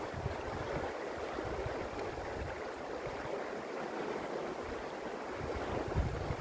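Fast-flowing river rushing over stones, a steady even noise, with wind gusting on the microphone and briefly loudest near the end.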